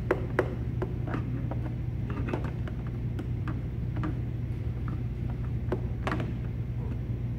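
Irregular plastic clicks and knocks as a new cylindrical engine air filter is pushed and twisted into its plastic air-box housing. A steady low hum runs underneath.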